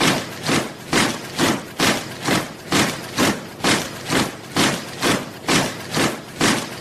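Soldiers marching in step, their boots striking the ground together in a steady beat of about two footfalls a second.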